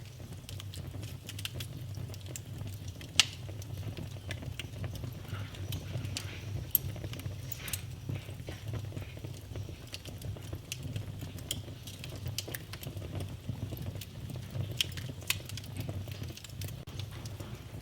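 Wood fire in a fireplace crackling, with scattered sharp pops, the loudest about three and about seven seconds in, over a steady low rumble.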